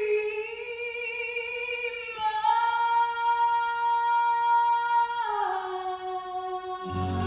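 A woman's solo singing voice holds long, sustained notes with no accompaniment. It leaps up to a higher note about two seconds in, holds it for about three seconds, then slides back down. Low accompaniment comes in underneath just before the end.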